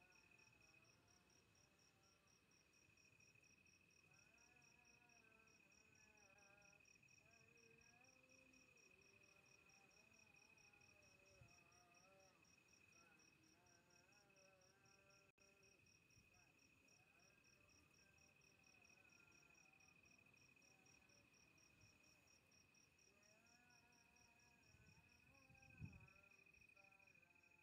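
Very faint crickets chirping: a steady high trill with a quick, evenly pulsing higher chirp, over faint distant voices. A soft knock near the end.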